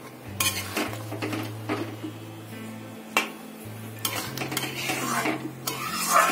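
Metal spoon scraping and clinking against a pan while stirring chicken curry in its gravy, in irregular strokes, loudest near the end. Background music plays underneath.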